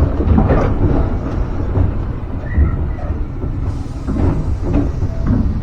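Tobu Kameido Line train running: a steady low rumble with scattered knocks of wheels over the track.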